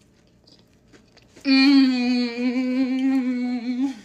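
Faint chewing, then about a second and a half in a woman's long, loud "mmm" hum of enjoyment, held on one wavering pitch for about two and a half seconds, as she savours a bite of muffin.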